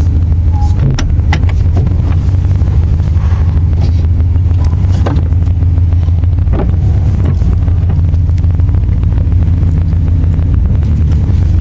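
1994 Chevrolet C1500's 350 throttle-body-injected V8 running steadily at low speed while the truck is manoeuvred, a loud low rumble with a few scattered clicks. The engine has an exhaust leak at loose header bolts.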